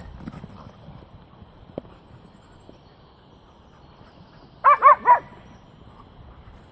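A dog barking three times in quick succession, short pitched barks about two-thirds of the way through, over faint rustling and footfalls.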